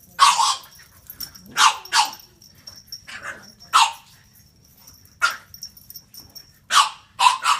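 A puppy barking: a string of about nine short, high-pitched barks at irregular intervals, some in quick pairs.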